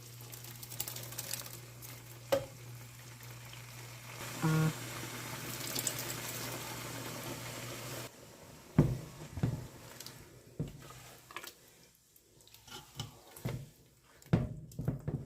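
Blended pepper sizzling as it goes into hot palm oil with fried onions and plantain. About eight seconds in the steady sizzle gives way to a run of sharp knocks and clatters.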